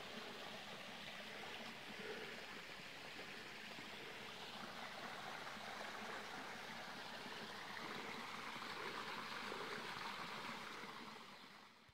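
Rainwater runoff flowing over rocks in a normally dry creek bed, a steady rushing and trickling that fades out at the very end.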